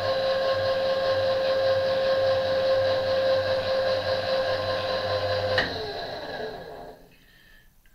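Electric table power feed on an RF-31 mill/drill driving the table with a steady motor whine. About five and a half seconds in there is a click, and the whine falls in pitch and dies away as the motor stops.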